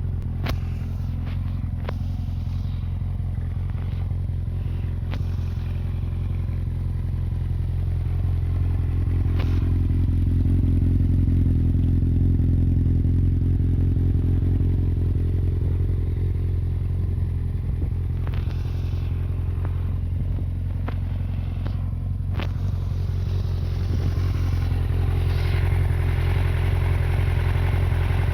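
1993 Yamaha YZF750SP inline-four running steadily at idle through a full Black Widow aftermarket exhaust with the EXUP valve deleted. The deep, even exhaust note holds without revving, swells slightly about ten seconds in, and is marked by a few sharp clicks.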